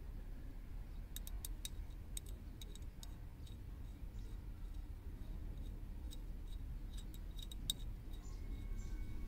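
Light, irregular metallic clicks and ticks as a coax F-connector is screwed by hand onto the threaded port of a metal satellite splitter, over a low steady background rumble.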